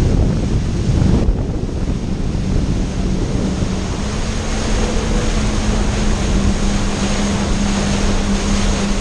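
Jet ski running at speed over open ocean: wind buffeting the microphone and water spray hissing off the hull. A steady low engine hum comes up about three seconds in and holds.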